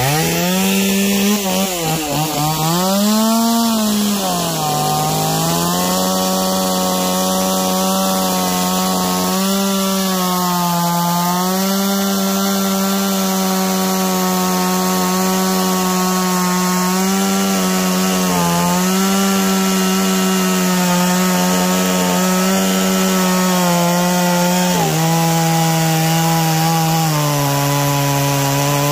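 Stihl MS 170 two-stroke chainsaw with a standard, non-carving bar, revving up and down for the first few seconds, then running steadily under load as it plunge-cuts into a wooden log and cuts through. Its pitch dips briefly a few times and settles a little lower near the end.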